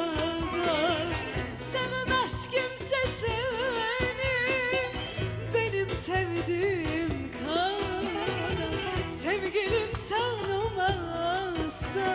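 Live Turkish classical music: a woman singing a melodic line with wide vibrato, accompanied by a keyboard.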